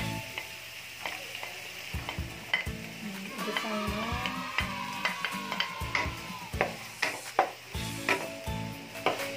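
Chopped onion and garlic sizzling in hot oil in a wok, stirred with a wooden spatula that scrapes and knocks against the pan many times.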